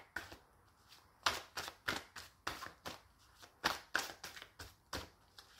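A deck of tarot cards being shuffled by hand, the cards slapping against each other in short, irregular clicks, about a dozen of them.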